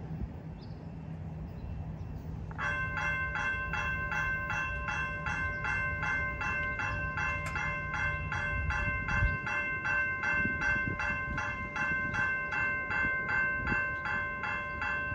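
Railroad crossing warning bell starting about two and a half seconds in and ringing in rapid, evenly repeated dings, the warning for an approaching train as the crossing gates come down.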